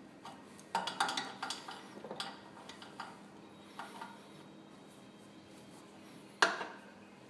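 Metal clicks and clinks of a small wrench worked on the stem of a refrigeration compressor's brass service valve. A cluster of quick irregular clicks comes in the first couple of seconds, then a few scattered ones, and one sharp ringing clink about six and a half seconds in.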